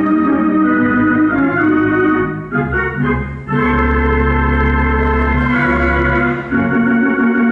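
Theatre organ playing live accompaniment in held chords. It breaks off briefly about two and a half seconds in, then comes back in on a new chord over a deep held bass note.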